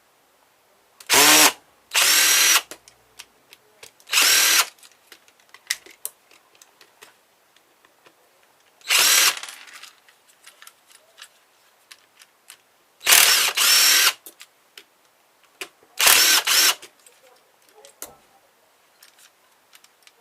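Cordless drill-driver run in about seven short bursts, its motor whine spinning up and winding down each time, backing screws out of a light switch. Small clicks and taps of handled parts come between the bursts.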